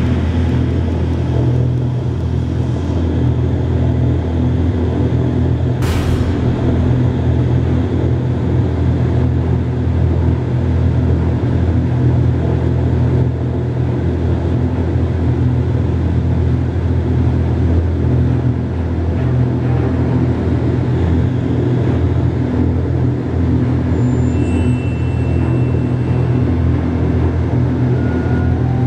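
Vertical wind tunnel's fans running at flying speed: a loud, even rush of air over a low, steady hum. One sharp click about six seconds in.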